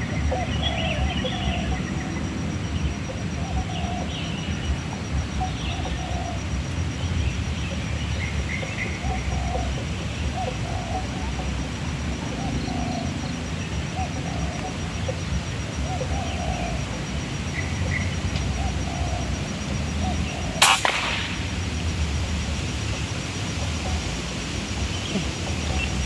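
Steady wind rumble on the microphone with birds calling faintly, then a single sharp air rifle shot about twenty seconds in, with a short ring after it.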